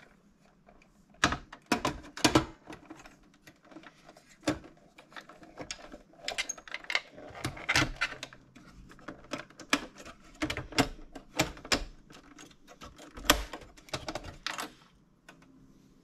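Sheet-metal hard drive caddy set down into a desktop computer case, then cable connectors handled inside it: irregular clicks, knocks and rattles of metal and plastic.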